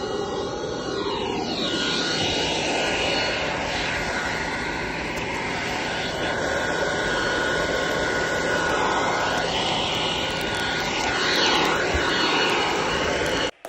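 Homemade bucket forge burning hard with forced air: a loud, steady rushing noise with a faint, steady whine running through it.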